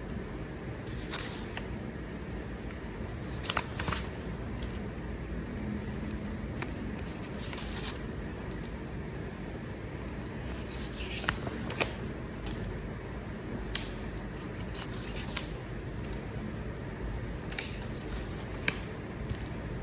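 Pen scratching and tapping on paper forms and the sheets being handled, scattered small clicks and rustles over a steady room hiss.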